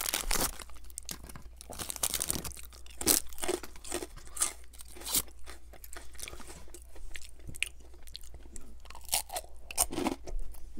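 A crisp fortune cookie being crunched and chewed, in scattered, irregular sharp crunches.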